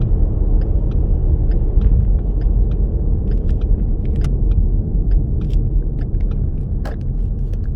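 Car driving on a freeway, heard from inside: a steady low road rumble, with faint scattered ticks over it.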